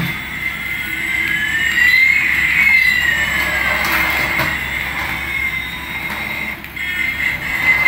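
Battery-operated light-up toy airplane and toy bus running on their own, their built-in speakers playing electronic sound effects: a slowly rising tone and a slowly falling tone that cross about two seconds in, over a steady high tone.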